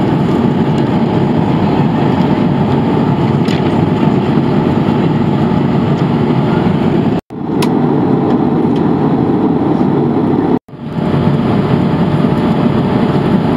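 Airbus A220-300 cabin noise in flight: a loud, steady rumble of engines and airflow. It drops out for an instant twice, about seven and ten and a half seconds in.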